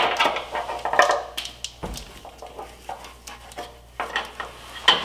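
Plastic exhaust sensor module and its wiring harness being pushed over a truck's frame rail by hand: irregular light clicks, scrapes and rustling.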